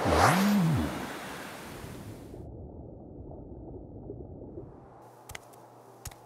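Cartoon whoosh transition effect, with a low tone that rises and falls in the first second, then a steady wash of ocean-like noise that turns muffled about two and a half seconds in. A few faint clicks come near the end.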